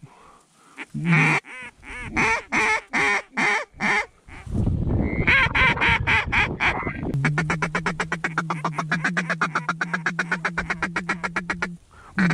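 A hunter's hand-blown duck call: a string of about eight loud quacks, then a rougher run of notes, then a long, rapid feeder chatter of about ten notes a second that stops just before the end. The calling is aimed at working a flock of ducks circling overhead.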